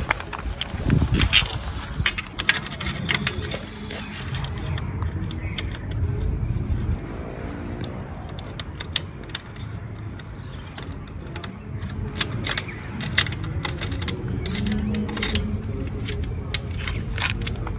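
Irregular metallic clicks, scrapes and knocks of a dB killer baffle being pushed into the outlet of a replica Akrapovič slip-on muffler and fastened by hand, over a steady low rumble.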